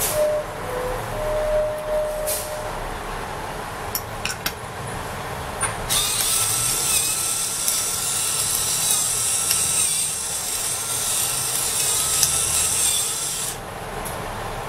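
Pepper mill grinding pepper onto raw pork chops: a steady rasping grind that starts about six seconds in and stops shortly before the end. A few light clicks come before it.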